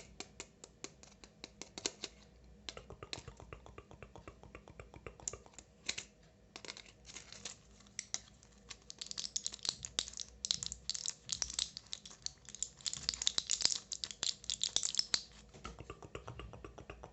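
Rapid tapping of fingernails on an anti-stress fidget toy, a fast run of sharp clicks. From about nine seconds in, the nails also scratch across it in a denser scratching that dies down near the end.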